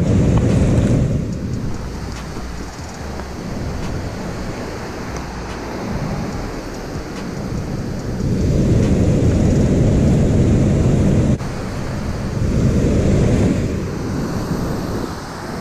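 Steady rush of water pouring over a dam spillway, with wind buffeting the microphone in low gusts: one at the start, a longer one from about eight to eleven seconds in, and another shortly after.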